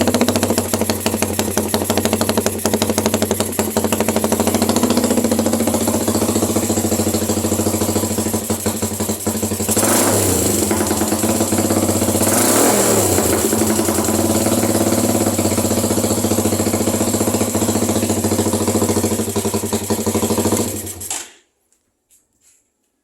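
Rusi 150 motorcycle engine idling steadily, revved briefly twice, about ten and twelve seconds in, then switched off near the end.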